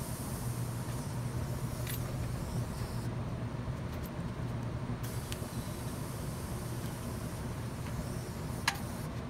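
TIG welding arc on steel giving a faint steady hiss over a constant low hum; the arc stops about three seconds in, followed by a few light clicks and taps.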